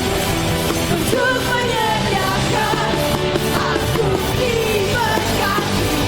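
Live worship band playing an upbeat pop-rock praise song, loud and steady.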